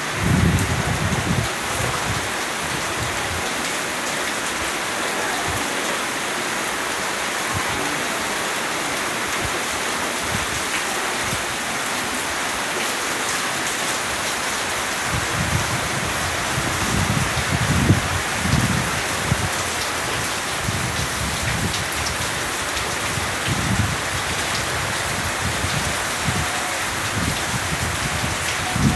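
Steady rain falling on trees and the ground, an even hiss throughout. Gusts of wind buffet the microphone in low rumbles just after the start and again and again through the second half.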